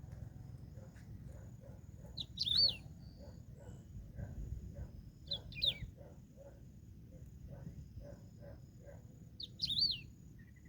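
A songbird sings a short, quick phrase of rising and falling whistled notes three times, a few seconds apart. Between them, softer low notes repeat about twice a second in the background.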